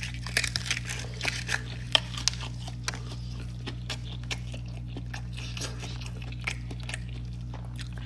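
Close-up chewing and biting of fried chicken tenders: crisp crunches and wet mouth clicks, densest in the first few seconds, over a steady low hum.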